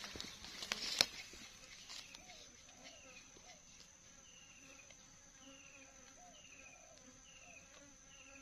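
Steady high-pitched insect drone of forest insects, joined from about three seconds in by a short falling call note repeated roughly once a second. A single sharp click about a second in.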